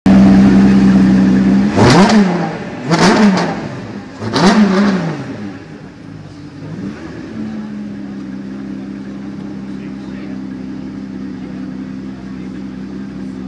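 Aston Martin One-77's V12 engine running, blipped three times in quick succession, each rev rising sharply and falling back, then settling to a quieter steady idle.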